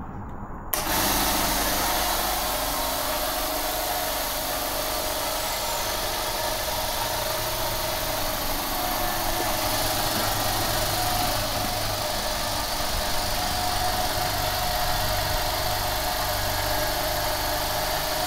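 Lincoln LCS50 oil-free 'silent' twin-head air compressor switched on under a second in, then running steadily as it fills its empty 50-litre tank. It reads about 75 dB at a metre.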